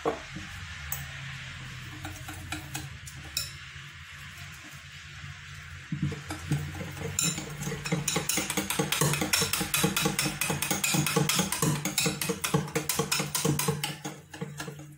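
Wire whisk beating cake batter in a glass bowl, its wires clicking rapidly against the glass; the whisking gets louder and faster about six seconds in. A steady low hum runs underneath.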